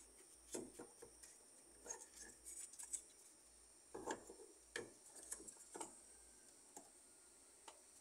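Faint, scattered clicks and light knocks of a plastic washing-machine drain pump being handled and offered up to its housing.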